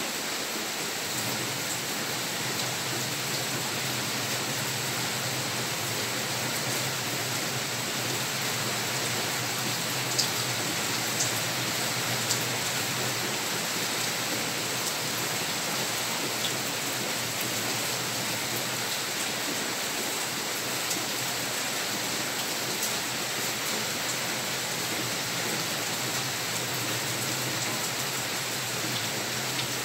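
Heavy rain falling steadily, a dense even hiss. A few louder, sharper drops land close by about ten to twelve seconds in.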